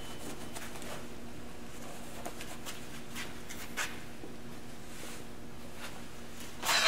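Faint rustling and a few light clicks from handling gear over a steady low hum. Just before the end a louder clatter of metal being handled starts.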